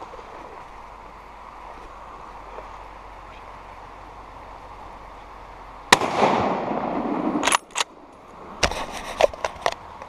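A single shot from a Blaser R93 hunting rifle in 9.3x62 about six seconds in, sharp and loud, trailed by about a second and a half of rushing noise. A handful of sharp clicks and knocks follow, and the faint steady rush of the river lies underneath before the shot.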